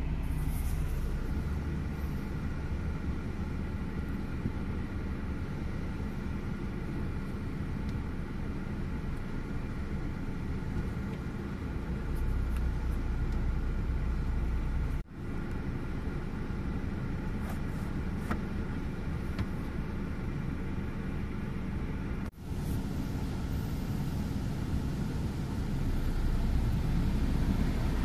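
Steady low rumble and hum of an automatic car wash heard from inside the car's cabin, with water and foam running over the glass. A brighter hiss of water spray builds near the end. The sound cuts out briefly twice.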